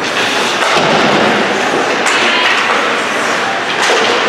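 Ice hockey play in an arena: a steady scrape and hiss of skate blades on the ice, with a few sharp knocks of sticks, puck or boards, about two seconds in and again near the end.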